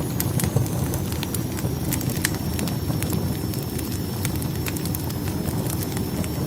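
Wood fire burning in a fireplace: a steady low rumble of flames with sharp, irregular crackles and pops from the burning logs.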